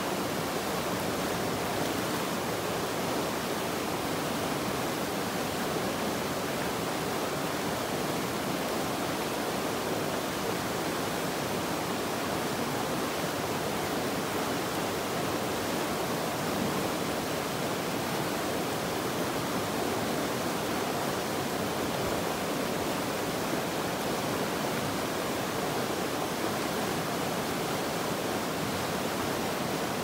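Fast glacial meltwater river rushing over rocks and around a boulder: a steady, even rush of white water with no breaks or changes.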